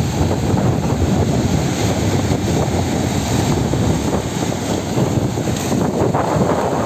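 Steady wind rumbling on the microphone over rough sea surf breaking on rocks.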